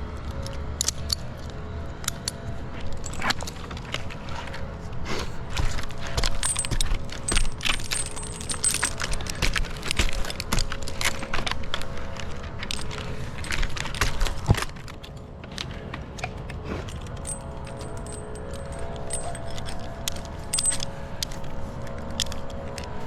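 Metal climbing and rigging hardware clinking and jangling, with many irregular sharp clicks and knocks that ease off for a moment about fifteen seconds in.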